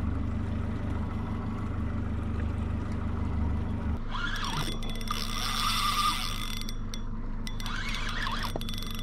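A low steady hum for about four seconds, then a spinning reel whirring under load for about three seconds, its gears and drag working against a hooked mahi-mahi, with short rising-and-falling whines.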